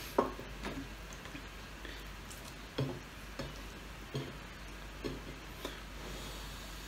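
Eating sounds close to the microphone: a man chewing chicken and rice, with about seven short wet mouth clicks and lip smacks spread through, the sharpest just after the start.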